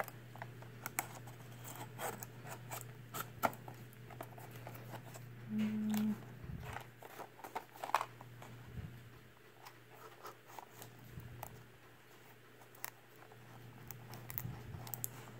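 Plastic-and-cardboard blister package handled while the tape along its sides is sliced with a blade: scattered small clicks, scrapes and crinkles, fairly faint.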